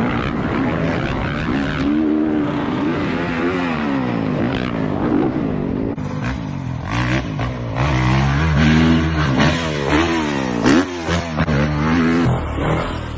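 Dirt bike engines revving hard, the pitch climbing and dropping again and again as the riders open the throttle and shift gears. The engine sound changes abruptly about six seconds in, to another stretch of revving with short sharp peaks.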